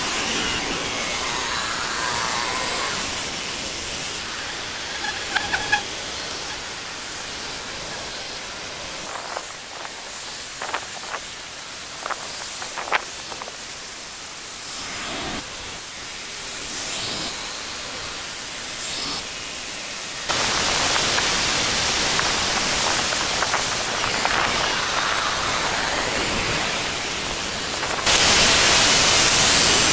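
Steady hiss of fast-forwarded woodland ambience, with a few short chirps and clicks in the first half. It steps up in level at cuts about two-thirds of the way through and again near the end.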